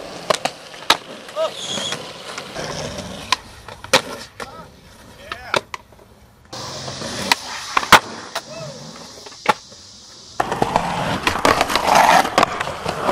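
Skateboards rolling on concrete, with sharp clacks of boards popping and landing several times. Over the last few seconds, a louder stretch of a board grinding along a concrete ledge.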